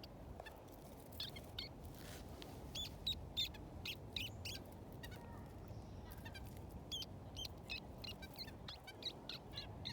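Small birds chirping: many short, high chirps in quick clusters, over a steady low background hum.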